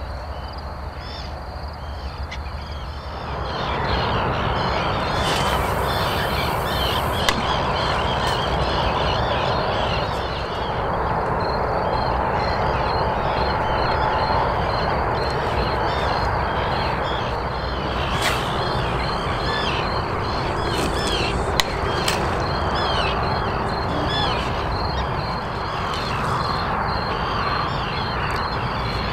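A dense outdoor chorus of animal calls, many short calls repeating continuously, over a steady rushing background that grows louder about three seconds in. A few sharp clicks stand out.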